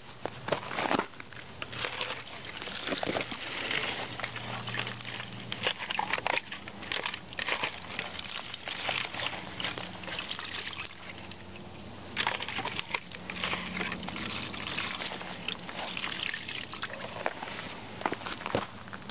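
Foam lawn-mower air filter being squeezed and sloshed by hand in a bucket of liquid: irregular wet sloshing and squelching with sharp splashy strokes, busiest at the start and again after about twelve seconds.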